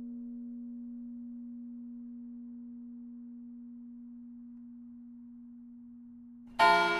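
Church bell tolling the eleven o'clock hour: the long hum of one stroke fades slowly, then about six and a half seconds in the bell is struck again, loud and ringing with many overtones.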